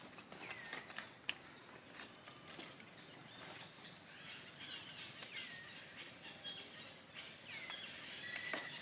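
Faint rustling and light clicks of dry leaves and twigs as baby macaques scramble and pull at a twig, with one sharper click about a second in. A few short, high calls that quickly bend in pitch come and go through it.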